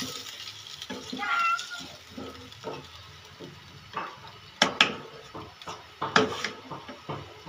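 A wooden spatula stirring a watery meat-and-taro curry in a nonstick pan, with sharp knocks of the spatula against the pan, the loudest two about two-thirds of the way through, a second and a half apart.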